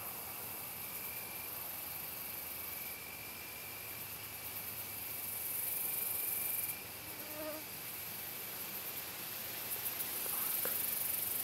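Insects trilling in a field: a very high-pitched chirring that comes in spells of a second or two, over a fainter steady high note.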